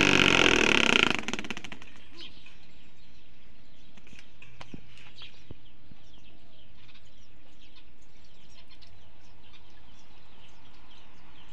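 Small birds chirping on and off over a steady background hiss, with a loud pitched call of about a second right at the start.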